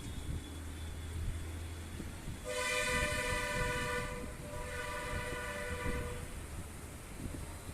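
A loud horn sounds one long two-note blast of about three and a half seconds, starting about a third of the way in, over steady background rumble.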